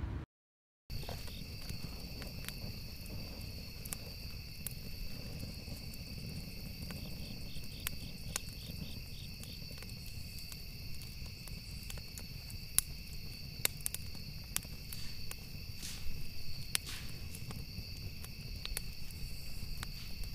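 Crickets trilling steadily at night over a log campfire that crackles, with sharp pops scattered throughout.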